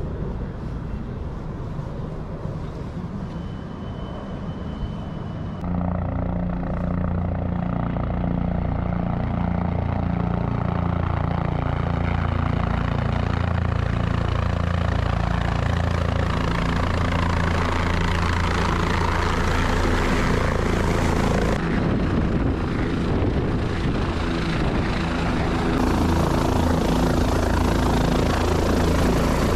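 Helicopter close by, its rotor and engine running with a steady low beat; it grows much louder about six seconds in.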